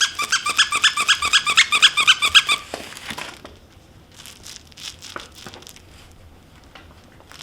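Squeaky plush dog toy squeaked rapidly, about six squeaks a second, for a couple of seconds, then brief crinkling and a few faint rustles.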